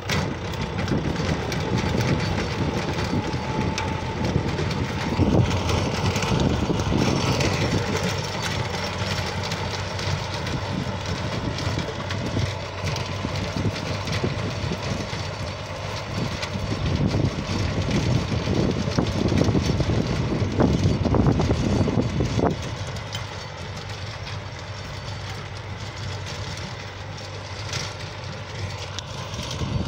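Compact tractor running steadily as it pulls a rear rotary tiller through the soil, a continuous engine and machinery rumble. The sound drops back somewhat about three-quarters of the way through as the tractor moves farther off.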